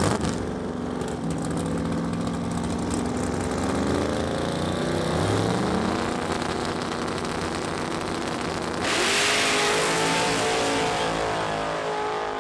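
Race-built full-size pickup trucks' engines running and revving at a drag strip's starting line, then launching about nine seconds in, with a sudden loud rush of engine noise that rises in pitch as they pull away down the track.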